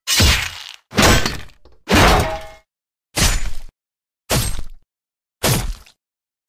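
A series of six sharp hits about a second apart, each ringing briefly, with silence between them.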